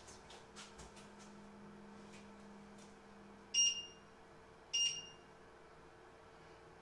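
Two short electronic beeps about a second apart, as the stove's controls are pressed, with a few faint clicks in the first second.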